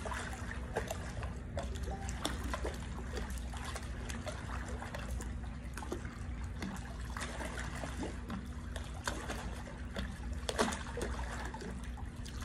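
Pool water splashing and trickling in many small irregular splashes as a swimmer kicks while holding the pool edge. A steady low hum runs underneath.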